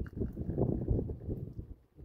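Wind buffeting the microphone in gusts, a rumbling noise that swells and fades.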